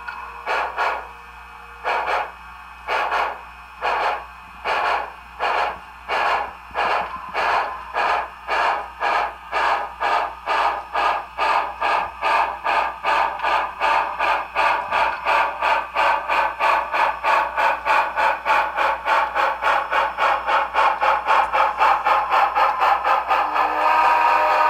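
SoundTraxx Tsunami sound decoder in an HO-scale B&O EM-1 2-8-8-4 Yellowstone model locomotive playing steam exhaust chuffs through its small speaker. The chuffs start about one a second and quicken steadily to several a second, growing louder as the locomotive picks up speed.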